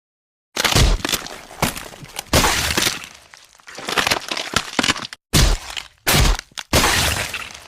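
A run of separate gore sound effects: about six sharp cracking, crunching hits, like bones breaking, each trailing off before the next begins, with brief dead-silent gaps between some of them.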